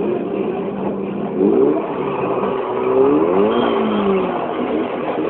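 Car engine revving, its pitch rising about a second and a half in and again around three seconds in, over a steady noisy background. Heard off a film soundtrack played on a screen, so it sounds dull and thin.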